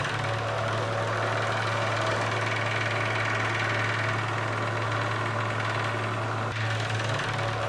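Electric desk fan running: a steady motor hum under an even rushing noise, with a brief wobble in the hum near the end.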